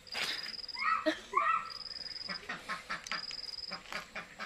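Two short animal calls about a second in, over a high-pitched pulsing note that repeats in bursts roughly every second and a half, with scattered faint clicks.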